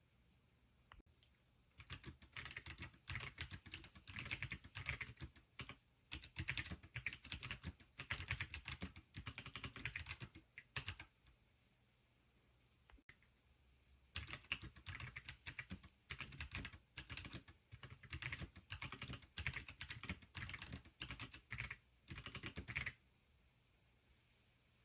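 Fast typing on a Pinky4 keyboard: two long runs of rapid keystroke clicks, separated by a pause of about three seconds in the middle.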